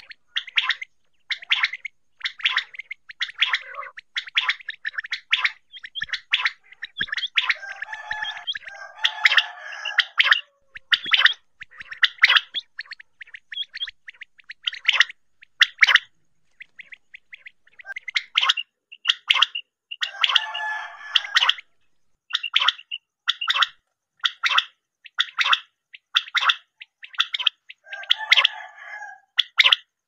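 Common quail calling: short, sharp notes repeated in quick clusters. Three longer raspy bursts break in among them, at about 8 seconds, 20 seconds and 28 seconds.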